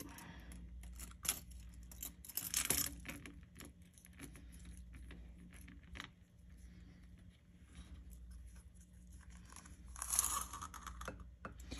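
Close handling of costume jewelry: faint metal clinks and small clicks from a gold-tone chain necklace and its fold-over clasp being opened, with light rustling. The handling is busier around two seconds in and again near the end.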